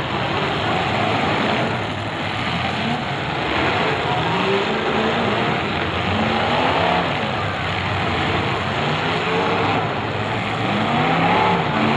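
Many demolition derby cars' engines running and revving together, their pitches rising and falling as the cars push and ram one another.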